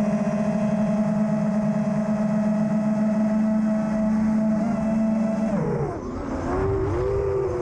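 FPV quadcopter's brushless motors whining at steady throttle. About six seconds in the pitch drops sharply as the throttle is cut, then climbs back and wavers as power comes back on.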